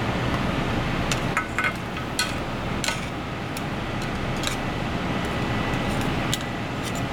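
A metal ladle and chopsticks clinking against an aluminium pot, about ten light, irregular clinks, several with a short ring. Under them is a steady rushing noise of the kitchen.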